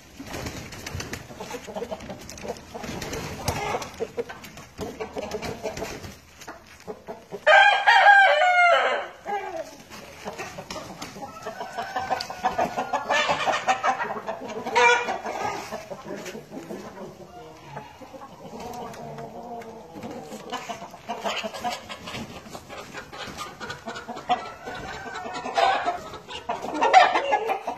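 A flock of Black Laced Red Wyandotte chickens clucking steadily. A rooster crows loudly once, about eight seconds in, and there are more loud calls near the end.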